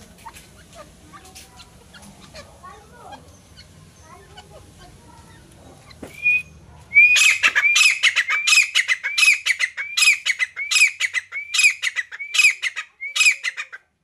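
Grey francolin giving its loud territorial call: a fast run of ringing, repeated notes, about two or three a second, starting about seven seconds in after one short opening note. Before the call there are only faint ticks and rustles.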